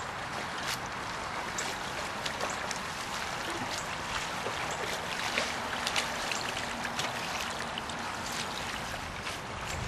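Steady rush of flowing river water, with scattered light splashes and drips.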